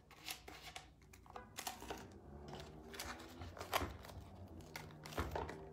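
Cardboard being handled on a wooden tabletop: scattered light taps, clicks and rustles as the flaps are folded and pressed down.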